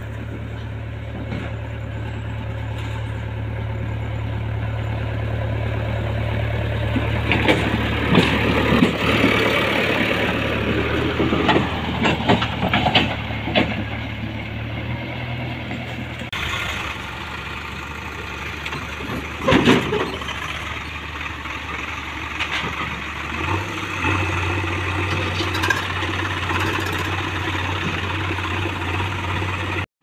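A JCB 3DX backhoe loader's diesel engine running steadily as the machine drives along a dirt track, growing louder over the first several seconds, with clanks and rattles from the machine in the middle of the stretch.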